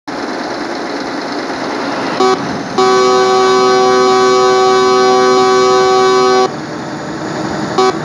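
Indian Railways locomotive air horn: a short toot about two seconds in, then one long steady multi-tone blast lasting several seconds, and another short toot near the end. A steady rushing noise runs under it throughout.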